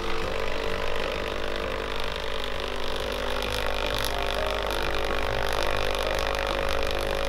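Thermal tattoo stencil printer running steadily as its motor draws a stencil sheet through the roller while printing.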